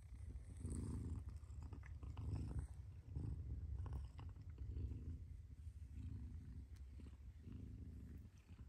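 Mother cat purring close by, a steady low rumble that swells and eases with each breath, about once a second.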